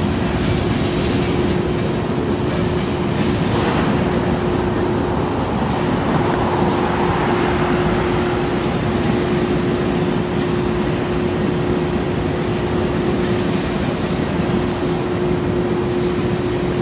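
Long freight train rolling past, its railcars rumbling on the rails with a steady hum over the noise.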